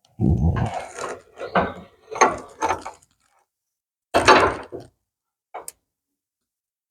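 A run of knocks and clunks as a heavy Model T rear axle and driveshaft assembly is shifted and lined up. There are about five knocks, the loudest near the start and again about four seconds in.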